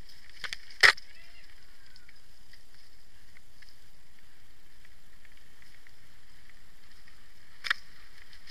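Mountain bike riding down a rough dirt singletrack, heard from the bike: a steady rush of tyres and air, with one loud sharp knock about a second in and a smaller one near the end as the bike jolts over the trail.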